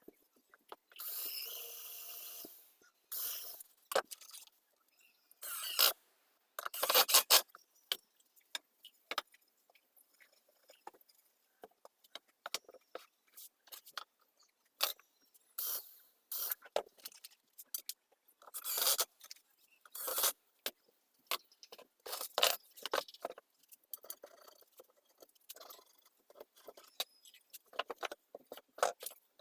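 Woodworking handling noise: scattered knocks, clicks and scrapes of pine boards and hand tools being moved and set down. A longer rasping scrape lasts about a second and a half near the start.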